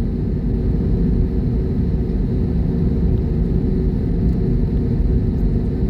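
Steady low rumble of a jet airliner's engines and airframe, with a faint steady hum over it and no change in level.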